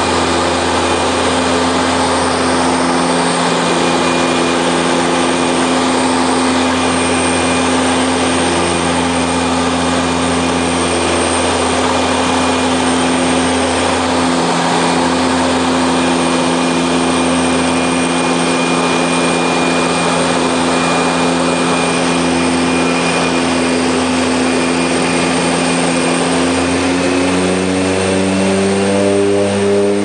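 De Havilland Canada DHC-6 Twin Otter's PT6A turboprop engines and propellers heard inside the cabin in flight: a loud, steady drone with a low hum. In the last few seconds the pitch rises and it gets a little louder as the propeller speed or power is increased.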